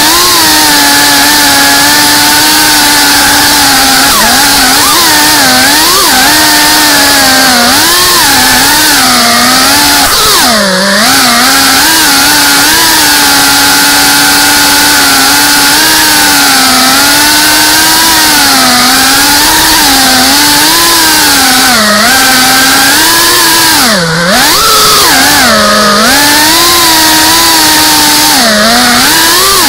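FPV quadcopter's electric motors and propellers whining, recorded from the drone itself; the pitch wavers constantly and drops sharply a few times as the throttle is chopped and picked up again, with a steady rush of air underneath.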